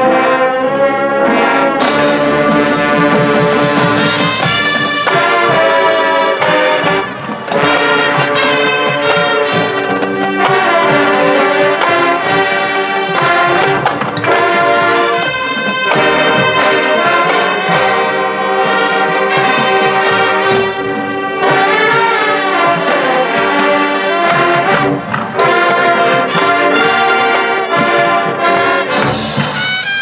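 A marching band plays a loud, brass-heavy passage, with trumpets and trombones over drums and mallet percussion. The playing briefly drops out twice.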